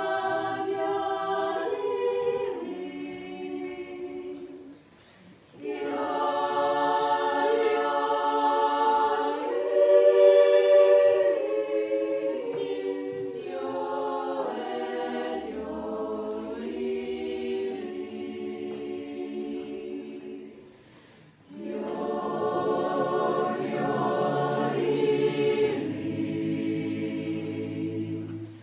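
Women's choir singing a cappella, in long phrases with short breaks about five seconds in and again near twenty-one seconds.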